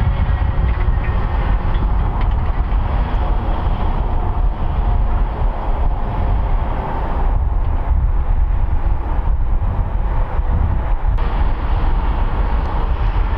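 Airport crash trucks, 6x6 Rosenbauer Panthers, driving past: a steady, loud, heavy rumble of big diesel engines and tyres, with no siren.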